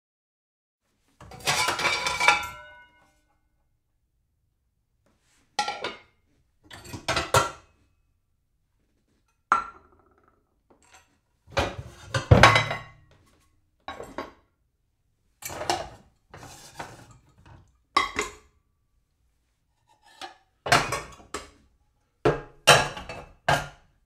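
Dishes being shuffled against each other: about eleven separate short bursts of clattering and clinking with silent gaps between, the loudest about halfway through.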